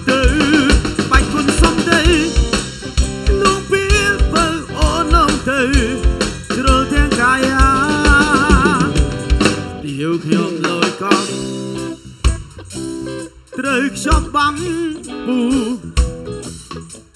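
Live band playing a Khmer pop song, with a drum kit keeping a steady kick-drum beat under a wavering lead melody. About ten seconds in the kick drops out, and after that the drums come in only now and then.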